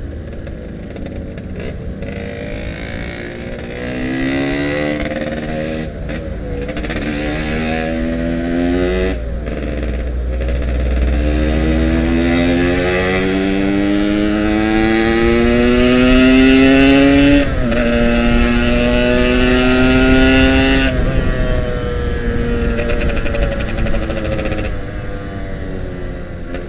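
Yamaha RX King's two-stroke single-cylinder engine pulling up through the gears. Its pitch climbs and drops back at each of three gear changes, then falls away as the throttle eases off near the end.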